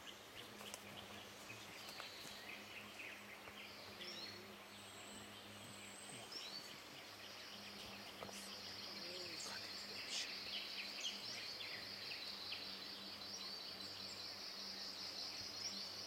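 Forest ambience: birds chirping and calling in short phrases. An insect's steady high-pitched buzz sets in about halfway through and carries on, with a faint low hum underneath.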